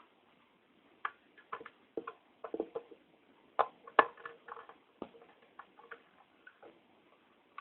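Irregular small clicks and light taps from a screwdriver and hard-drive parts being handled, with two louder knocks in the middle.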